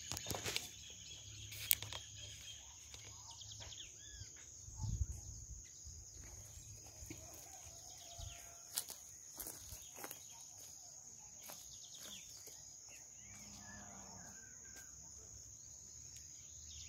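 Rural field ambience: a steady high-pitched insect drone, with occasional short bird calls and a few scattered knocks and thumps, including a low thump about five seconds in.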